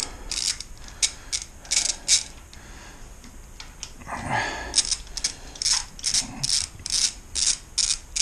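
Hand ratchet clicking as it is worked back and forth on a bolt. Short runs of clicks with a pause near the middle and a brief scrape, then steady clicking at about three a second.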